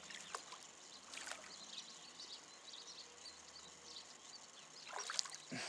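A hooked carp splashing faintly at the pond's surface a few times as it is played on the line, the loudest splash near the end. Small high chirps, like distant birds, sound throughout.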